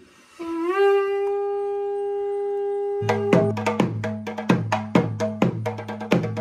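A conch shell blown in one long held note, rising in pitch at the start and then steady for about three seconds, of the kind sounded at a temple rite. Near the end of the note, rhythmic ritual drumming starts up again with even, quick strokes.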